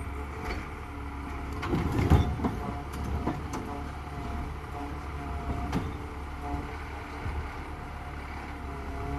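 Garbage truck engine running steadily, with a few scattered clanks and knocks, the loudest about two seconds in.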